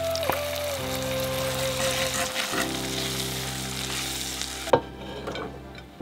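Curry sizzling in a clay pot as it is stirred with a wooden spoon. The sizzling stops with one sharp knock near the end.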